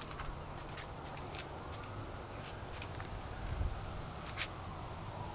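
Insects chirring in one steady, high-pitched drone, with scattered clicks and low rumbling from a handheld camera being moved about.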